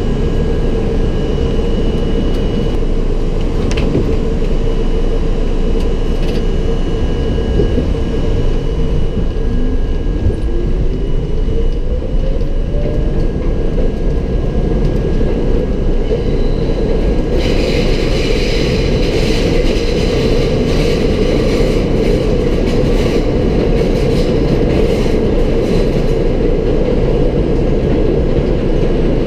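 R32 subway train running at speed: a steady, loud rumble of wheels and motors on the track. A rising whine comes in briefly a third of the way in, and a higher hissing clatter from the wheels and rails joins for about eight seconds in the second half.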